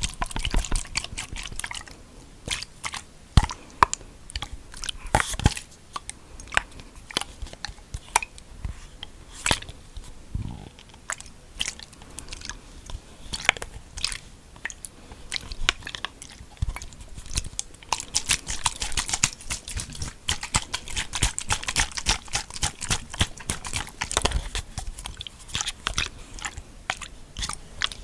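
Close-miked ASMR mouth sounds: an irregular run of wet clicks and smacks, coming thickest a little past the middle.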